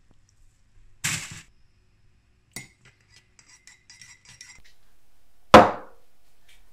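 A teaspoon stirring tea in a ceramic mug: a short scraping rush about a second in, then a run of quick ringing clinks against the mug's sides, and one loud sharp knock near the end.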